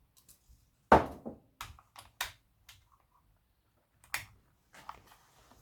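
Irregular sharp clicks and knocks from a 37cc chainsaw's parts being handled and worked by hand: a loud click about a second in, a quick run of smaller clicks after it, and another click a little after four seconds.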